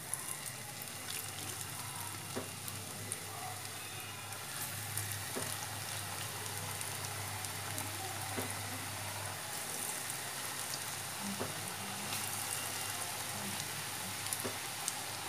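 Potato and onion pakoras, gram-flour batter fritters, deep-frying in hot oil in a kadhai: a steady sizzle with scattered small pops.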